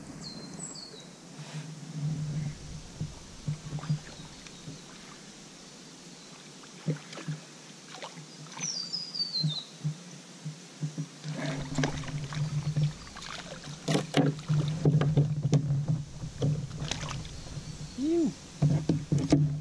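Spinning reel being wound in spells as a lure is retrieved, a low hum that starts and stops, with clicks and knocks of the rod and gear against the kayak growing busier in the second half. A bird calls briefly near the start and again with a short descending run of notes about nine seconds in.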